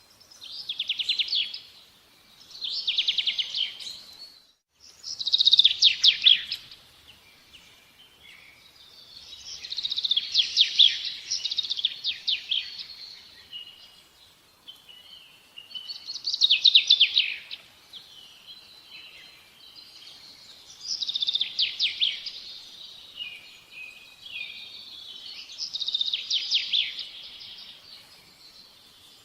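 Bird song: repeated short phrases of rapid notes, each a second or two long, coming every few seconds over a faint steady background.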